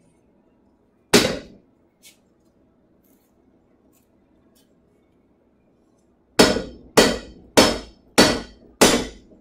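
Forging hammer striking a hot steel sword blade on an anvil: one blow about a second in and a light tap after it, then, after a pause, a steady run of blows about every 0.6 seconds, each with a short ring.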